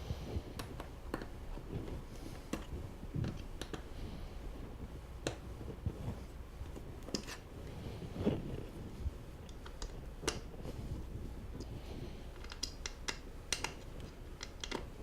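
Hex wrench turning and tightening bolts in an office chair's seat mechanism: irregular sharp metal clicks with light scraping and handling noise between them.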